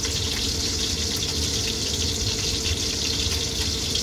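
A steady rushing hiss with a low hum and a faint steady tone beneath it, unchanging throughout, with a few faint ticks.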